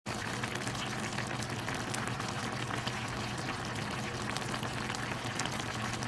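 Army stew (budae jjigae) broth boiling in a pan: a steady bubbling with many small pops.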